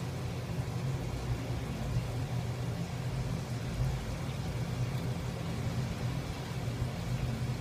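Steady low hum under an even hiss, with no sudden sounds.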